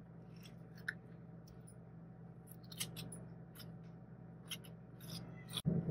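Faint scrapes and soft clicks of a metal spoon scooping ripe avocado flesh out of its skin, a few spaced strokes over a low steady hum.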